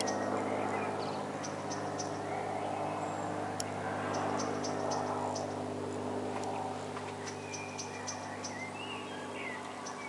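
Small propeller plane's engine droning steadily overhead, easing off a little in the second half. Birds chirp in quick high series over it, with a few whistled notes near the end.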